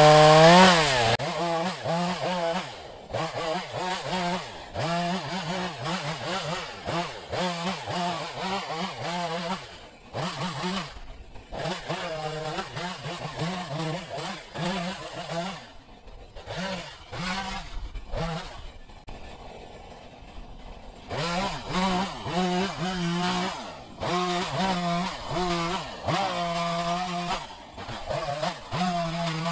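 Two-stroke chainsaw at high revs, run hard for about the first second and then throttled up in short bursts again and again, with brief drops in between.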